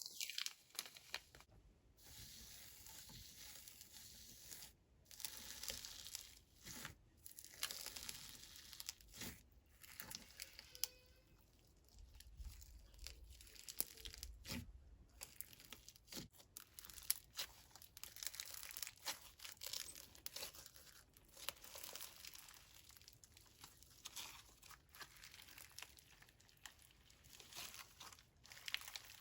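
Slime with add-ins being stretched, squished and poked by hand, giving faint, irregular sticky crackles and tearing sounds.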